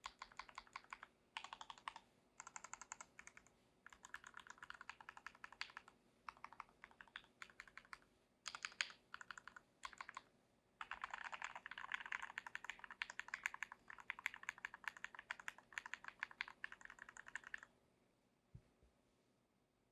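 Typing on an IDOBAO Abacus ID42 mechanical keyboard with Gateron Milky Yellow linear switches, in bursts of rapid keystrokes with short pauses and a long fast run from about halfway, stopping near the end.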